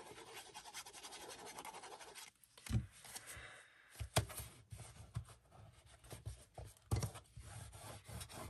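Faint rubbing and scratching of black cardstock being folded and pressed flat with a bone folder, with a few light knocks of paper and hands on the table.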